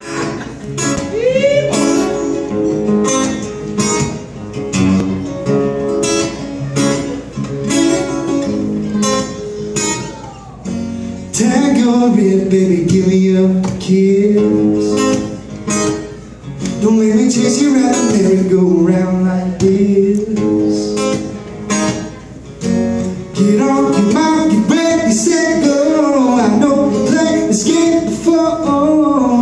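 Two acoustic guitars strummed in a steady rhythm as a song's introduction, then a man's voice singing over them from about eleven seconds in.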